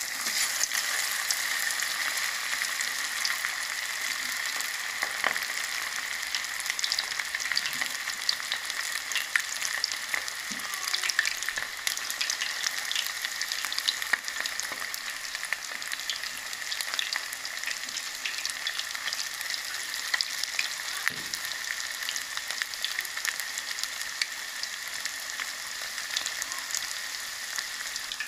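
Besan-coated chicken pakora pieces deep-frying in hot ghee: a steady sizzle thick with small crackling pops.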